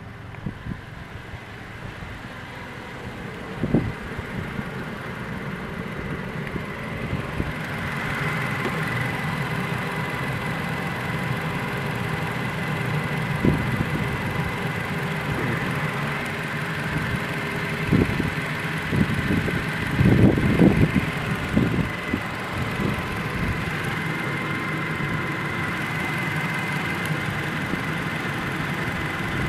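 A warm Toyota Tacoma pickup engine idling steadily under the open hood. It grows louder over the first several seconds, with a thin, steady high whine over the running and a few short knocks, the loudest about two-thirds of the way through.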